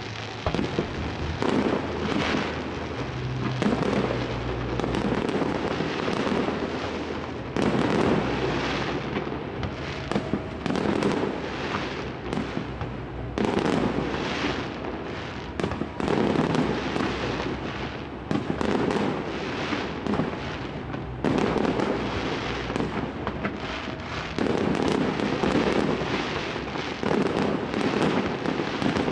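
Fireworks display: rapid, dense bangs and pops from bursting aerial shells, swelling into louder volleys every two to three seconds.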